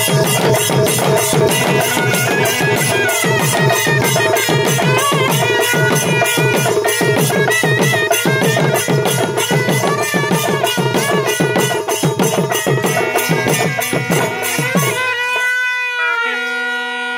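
Traditional Tamil temple festival drumming for a saamy aattam possession dance: barrel drums beaten with sticks in a fast, even rhythm under a piping wind-instrument melody. About 15 seconds in the drums stop and a single held note is left.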